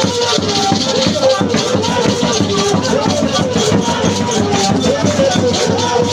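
Live church praise music: a voice singing over a steady beat with a shaker or rattle keeping time.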